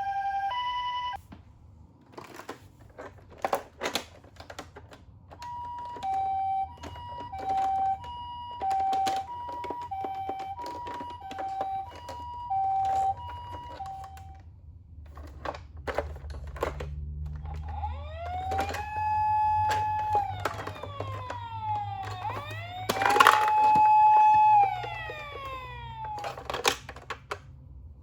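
Toy ambulance minicar's electronic siren: a two-tone hi-lo ambulance siren alternating about twice a second, briefly at the start and again for about nine seconds, then two rising-and-falling wails in the second half. Short clicks and rattles of the plastic toy run alongside, with a low rumble in the middle stretch.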